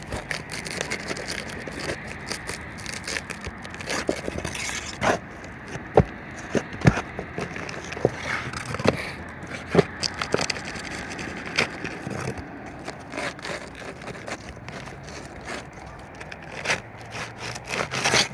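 Scraping and crackling of hand tools working loose asphalt roof shingles, broken by irregular sharp knocks.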